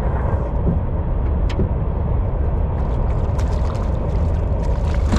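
Wind buffeting the microphone: a loud, steady low rumble, with a few faint ticks over it.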